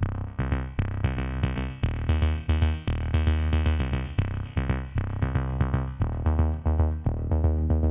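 Electronic background music: synthesizer notes over a drum-machine beat with a steady bass line.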